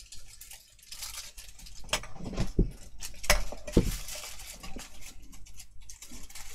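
Rummaging through craft supplies while searching for a roll of tape: small hard objects clatter and clink, with a few sharper knocks about two to four seconds in.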